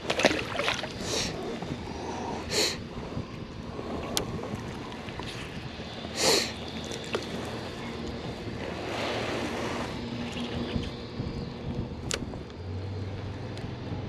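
Handling noise aboard a kayak on open water: a series of short splashy knocks, a few sharp clicks and a steady rush of wind on the microphone.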